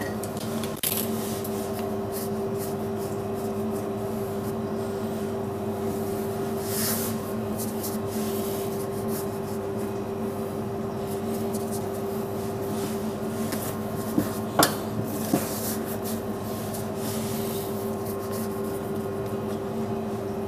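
A steady machine hum with several tones runs throughout. Over it come soft rubbing and scraping sounds as bread dough is handled and scored with a blade, and a few short knocks about fourteen to fifteen seconds in.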